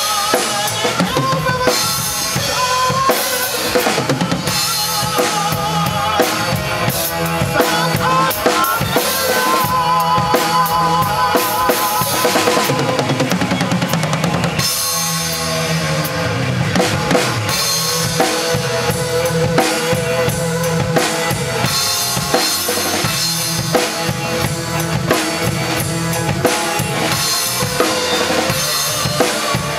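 Acoustic drum kit played hard, with bass drum, snare and crash cymbals, along to a recorded rock song whose melody and singing run underneath. The groove follows the song's main rhythm in 7/8 and 4/4.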